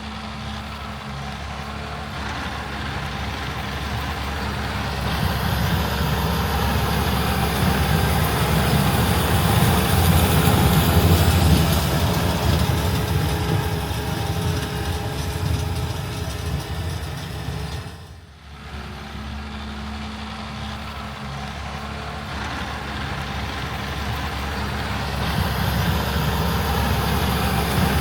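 Heavy diesel farm machinery or trucks running at work, a deep steady engine sound that grows louder, as if drawing nearer. About two-thirds of the way through it breaks off and starts again.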